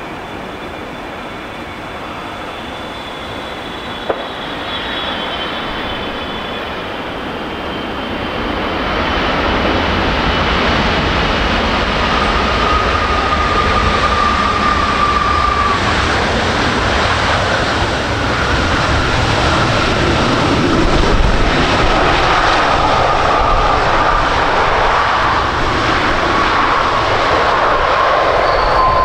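Boeing 777F jet engines on a landing: a fairly quiet whine with high tones gliding down, then from about eight seconds in a swell into a loud, steady roar with a thin whine through it as the freighter rolls out on the runway, the rise typical of reverse thrust after touchdown.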